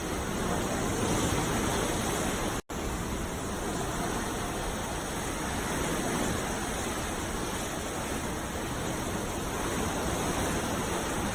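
Sea waves washing in a steady, unbroken hiss of surf, swelling slightly now and then. The sound cuts out for an instant about two and a half seconds in, then resumes.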